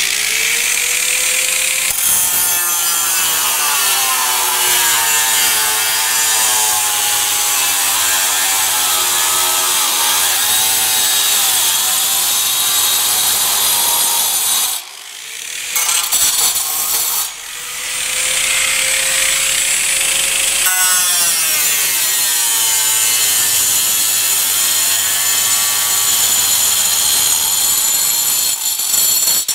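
4.5-inch angle grinder with a masonry diamond blade cutting a slit through a steel stud track: a steady motor whine with the rasp of the blade biting into the metal. The cut stops briefly about halfway through, then the grinder starts again for a second pass.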